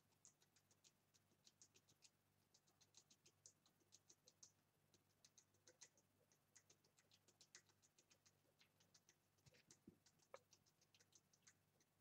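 Near silence with faint, irregular high clicks, several a second, from fancy rats in their plastic cage.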